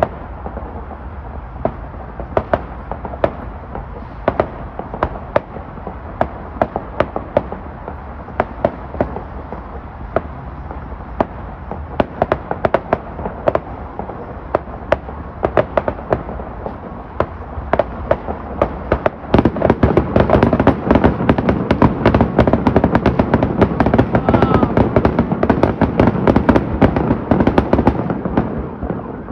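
Fireworks going off: sharp bangs and pops, several a second, then about two-thirds through a dense, louder run of crackling that dies away near the end.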